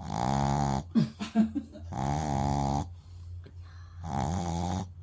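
A sleeping dog snoring: three long pitched snores about two seconds apart, with a few brief sharp noises about a second in.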